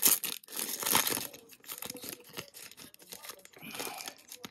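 Foil trading-card pack crinkling and tearing as it is ripped open by hand, loudest in the first second or so, then lighter crinkling.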